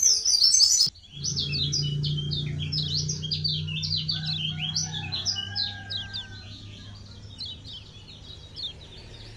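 Kecial kuning (a small white-eye) chirping in quick, short, high notes. A louder burst in the first second cuts off abruptly, then a fast run of chirps continues over a steady low hum and thins out toward the end.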